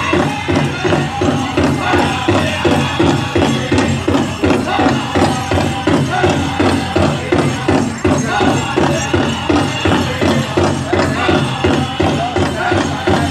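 Pow wow drum group singing a men's chicken dance song over a big drum struck in a fast, even beat, with jingling bells. The high singing grows stronger in the second half.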